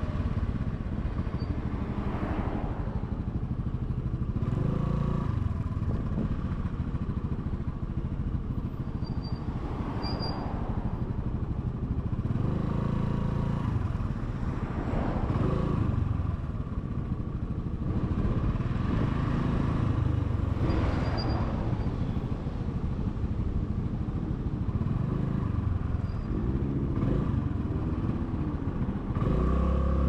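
Honda Navi scooter's 109 cc single-cylinder engine running under way, with road and traffic noise swelling and fading every few seconds. Near the end the engine note rises in pitch and gets louder.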